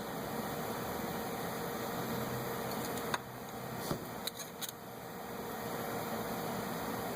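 Steady background hum with a few sharp metallic clicks and taps near the middle, typical of tools and parts being handled during hub assembly work.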